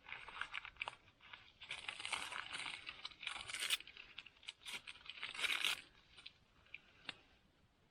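Crinkly material rustling and crackling in irregular bursts as it is handled, louder in the middle and dying away about six seconds in.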